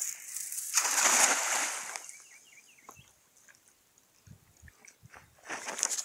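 A thrown cast net landing on the surface of the water, a spreading splash that starts about a second in and lasts about a second. A shorter burst of noise follows near the end.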